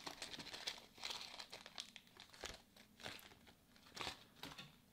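Plastic electronic-component bags crinkling in hands, a small clear bag of capacitors and a metallised anti-static bag, with faint, irregular crackles and rustles.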